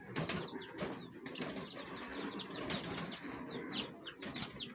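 Dry hay rustling and crackling as a hand moves through a hay-lined nest, with small cage birds chirping in the background in quick, short, high chirps that fall in pitch.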